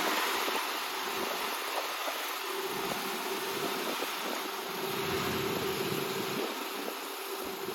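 Rice combine harvester's engine running steadily, a constant hum with a held mid-pitched tone over a hiss.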